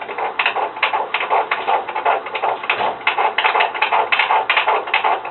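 Fetal heartbeat played by an ultrasound machine's Doppler: a fast, even train of pulses at about 140 beats a minute, a normal fetal heart rate.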